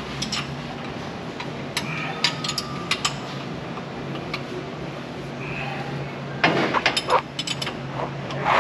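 Scattered metallic clinks and taps of tools and parts being handled, with a quicker, louder clatter about six and a half seconds in, over a steady low hum.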